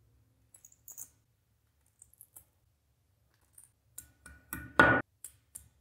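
A hammer tapping 6 mm plastic wall plugs into drilled holes in a wall: a run of sharp knocks, about three a second, starting about four seconds in, some with a short metallic ring. A few faint small clicks come before the knocks.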